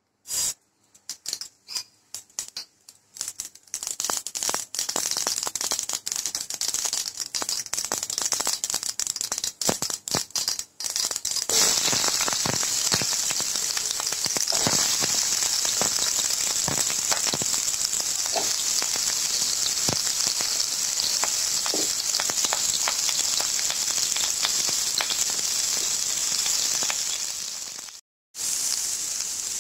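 Seeds and spices crackling and popping in hot oil in a stainless-steel pan. About eleven seconds in, chopped onions go in and the oil changes to a steady loud sizzle, which breaks off briefly near the end.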